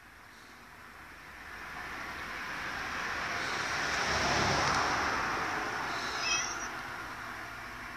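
A vehicle passing on a road: its noise swells over a few seconds and then fades. A domestic cat gives one short, high meow about six seconds in.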